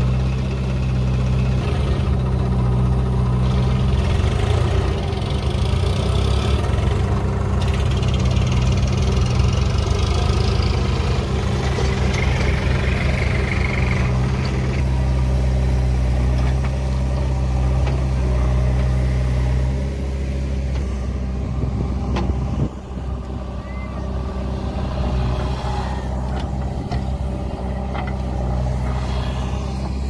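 Diesel engines of a JCB 3DX backhoe loader and a Swaraj 735 FE tractor running steadily. The engine note changes about two-thirds of the way through, and a single sharp knock comes soon after.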